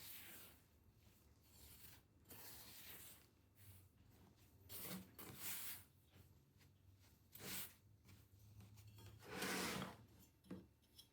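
A few short, soft rubbing and scraping sounds of kitchen handling, the loudest about halfway through and again near the end, over near-quiet room tone.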